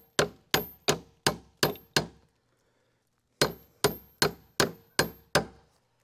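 Hammer blows on metal, each ringing briefly: about six even strikes, a little under three a second, then a pause of over a second, then six more at the same pace.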